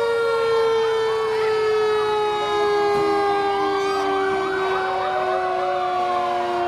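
Several fire truck sirens sounding at once. One long siren tone sinks slowly in pitch throughout, while other sirens wail up and down over it.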